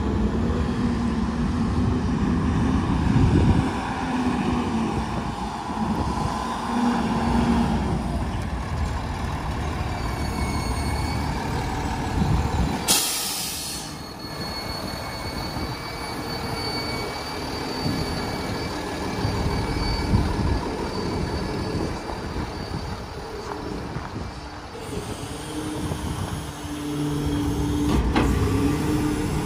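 Diesel engine of a 2017 CCC LET2 garbage truck running as the truck drives and idles, with a loud, sharp burst of air from the air brakes about 13 seconds in.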